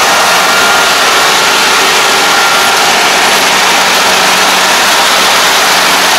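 Rice combine harvester running while it cuts standing rice: a loud, steady mix of engine and machinery noise.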